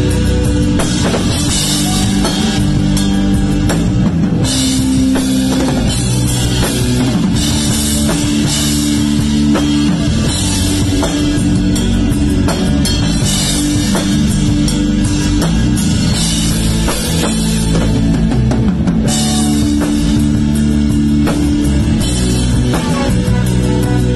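Rock band playing, with the drum kit up front: a steady driving beat and cymbals washing in and out, the rest of the band sustaining notes underneath.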